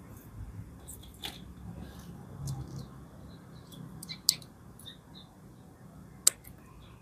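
Small hand scissors snipping several times: short sharp clicks, the loudest two about four and six seconds in.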